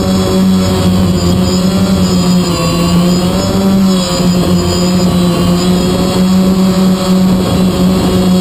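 DJI Phantom quadcopter's motors and propellers buzzing steadily, heard from the camera mounted on the drone itself, the hum wavering slightly in pitch as it gains height.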